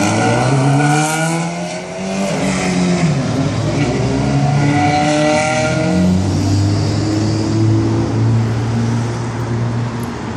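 The engine of a motorcycle/go-kart hybrid revving and accelerating, its pitch climbing and dropping back several times, then running at a steady pitch for the last few seconds.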